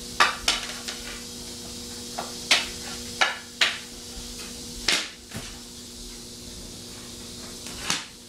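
Hockey stick blade striking tennis balls and the hard floor during hard shots: a series of sharp clacks, about seven or eight, irregularly spaced.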